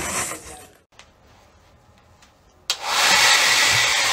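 A loud, steady rushing noise like a blower or hair dryer, starting abruptly a little over halfway through after a near-quiet stretch.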